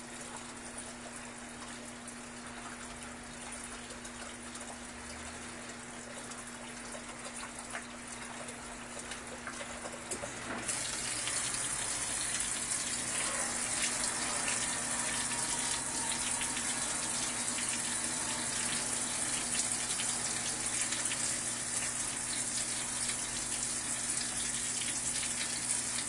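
Brastemp Vantage top-load washing machine filling: a steady low hum for about the first ten seconds, then a strong, even rush of water spraying down onto the clothes in the drum. The water is already mixed with detergent from the dispenser.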